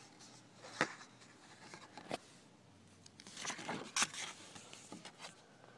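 Cookbook pages being turned and handled: papery rustling with a few sharp flicks, busiest from about three to four seconds in.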